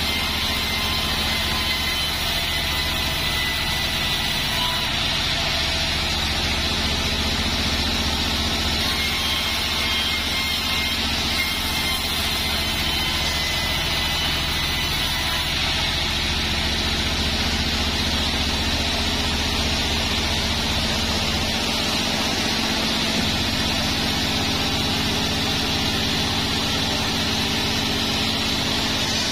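Band sawmill running steadily, a constant low hum with a high whine, its vertical band blade sawing joar wood.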